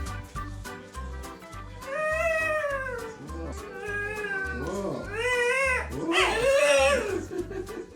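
A cat meowing in four long, drawn-out calls that rise and fall in pitch, the last the loudest, over background music with a steady beat.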